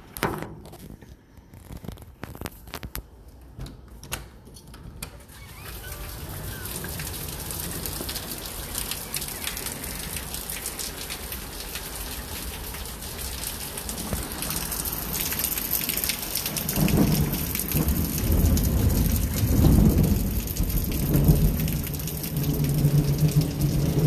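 A few clicks and knocks, then heavy thunderstorm rain hissing steadily and growing louder. In the last several seconds, deep thunder rumbles in heavy swells and is the loudest sound.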